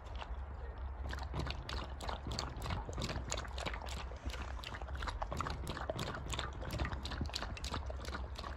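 A wolf lapping milk from a bowl: quick, wet laps in an even rhythm, several a second.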